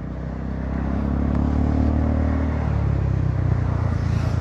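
Honda Forza 300 scooter's single-cylinder engine running through an aftermarket exhaust freshly repacked with glass wool, giving a soft, even note. It swells over the first second as the scooter picks up a little speed, then holds steady at a gentle cruise.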